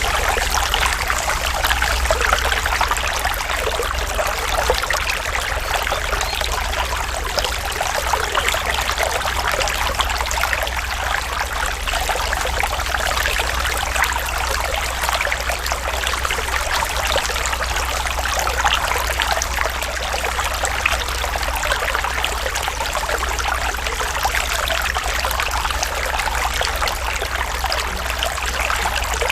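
Natural running water, a stream trickling and babbling steadily over stones, with a steady low rumble underneath.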